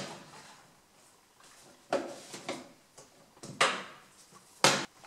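Several short knocks and scrapes of parts being handled as the ATV's fuel tank is taken off, four of them standing out in under five seconds.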